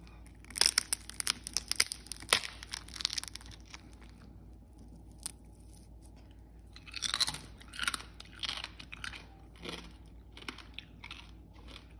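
Crisp crackling skin of an oven-roasted pork leg (crispy pata) crunching and cracking as fingers break and tear it apart. The sharp crackles come in two spells: a dense run from about half a second in to about three and a half seconds, then another around seven to nine seconds, with a few scattered snaps after.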